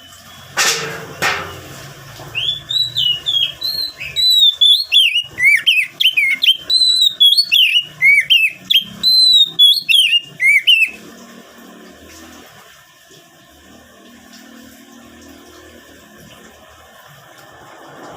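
Oriental magpie-robin singing: a fast, varied run of loud whistled notes that leap up and down, lasting about eight seconds and then stopping. Two short scratchy noises come just before the song starts.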